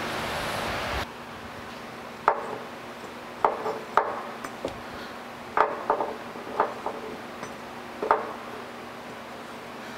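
Metal machine leveling feet clinking and knocking as they are set against the concrete floor under the base of a surface grinder: about ten sharp, irregular clinks. A steady hiss cuts off about a second in.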